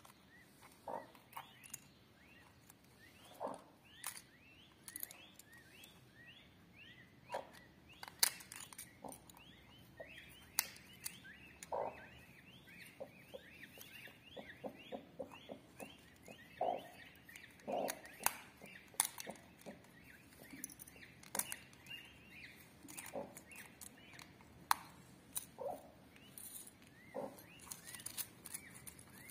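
Peacock eggshell being cracked and picked apart by hand: scattered sharp cracks and crackles of breaking shell. Birds chirp in the background, with a long run of quick, high, falling chirps in the first half.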